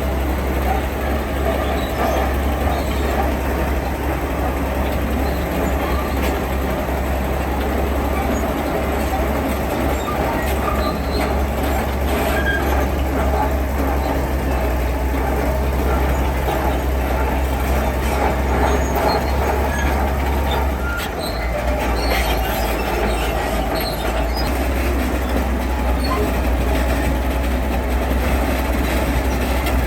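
Tracked heavy construction machine at work: a diesel engine drones steadily while its metal tracks clank and squeal. The engine note shifts lower about two-thirds of the way through.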